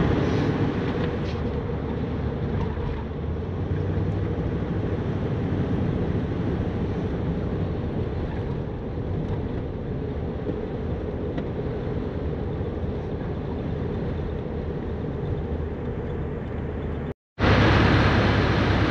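Van engine hum and tyre noise heard from inside the cab while driving through town. After a brief dropout near the end, a louder, hissier rush of road and wind noise at highway speed.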